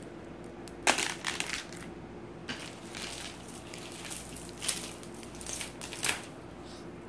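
Strands of beads clicking and rattling as beaded necklaces are handled and laid on a tray. A cluster of clicks comes about a second in, then single clicks follow every second or so.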